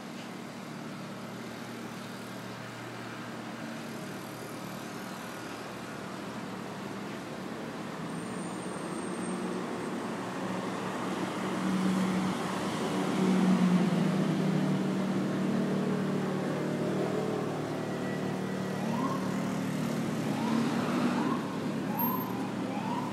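City street traffic, with a motor vehicle's engine humming that grows louder and is loudest about halfway through. Near the end a siren starts up in short, quickly repeated rising whoops.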